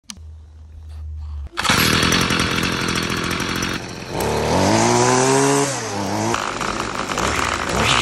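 Petrol string trimmer's two-stroke engine: a low hum at first, then it goes suddenly loud about a second and a half in and runs. Around the middle it revs up in a rising whine, then drops back to a steady run.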